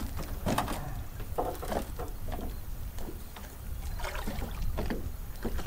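A small rowboat being pushed up out of the water onto a ramp of wooden boards: irregular knocks and scrapes of the hull against the boards.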